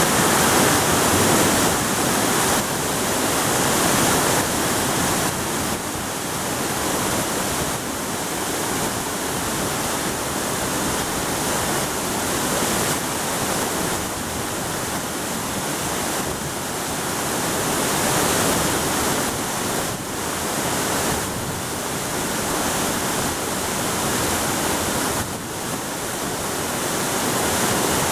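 Small waterfall, water falling and splashing in a steady rush.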